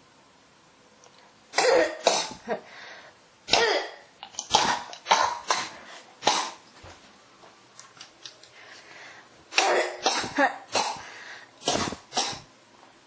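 A person coughing in repeated fits: runs of short, harsh coughs from about one and a half seconds in to about six seconds, then a pause of some three seconds before another run.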